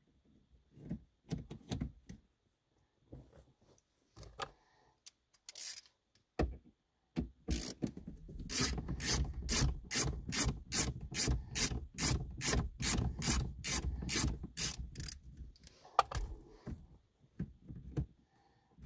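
Ratcheting screwdriver with a T20 Torx bit clicking steadily, about three clicks a second for some seven seconds, as the radio's mounting screws are backed out. Before that come scattered knocks and scrapes of the tool against the radio and dash.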